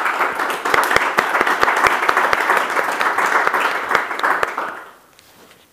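Audience applauding in a lecture room, with one person's loud claps close to the microphone standing out at about four a second; the applause fades out about five seconds in.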